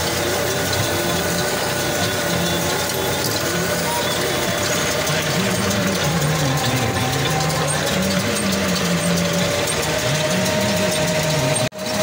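Tractor engine and a Bharat Baler 9060 round baler running together in the field, a steady loud mechanical noise whose pitch wavers slowly as the load changes. The sound cuts out for a moment near the end.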